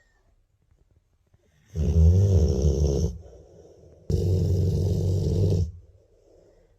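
Sleeping dog snoring: two loud, rough snores, the first about two seconds in and the second about four seconds in, each lasting about a second and a half, with a quieter breath between them.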